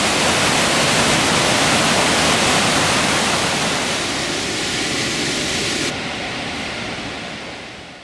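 Steady rush of a waterfall and its whitewater torrent, an even noise of falling and churning water. The noise loses its hiss about six seconds in and fades out near the end.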